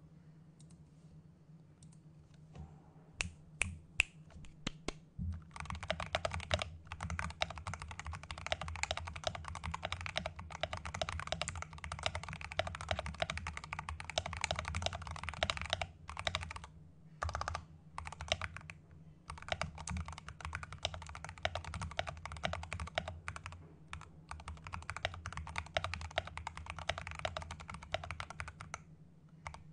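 Fast typing on a modded RK61 Pro mechanical keyboard with Aqua King switches, POM Jelly keycaps, lubed and clipped stabilisers, and tape and paper mods: a dense run of keystroke clacks. A few single key presses come about three seconds in, then continuous typing from about five seconds, with brief breaks about halfway through.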